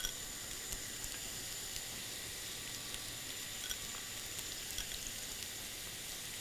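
Sliced red onion frying in hot olive oil in a pan: a steady sizzle with small scattered pops and crackles.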